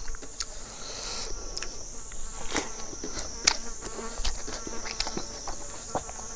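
Steady high-pitched buzzing of insects, with scattered sharp clicks from chewing and fingers picking food off a pan.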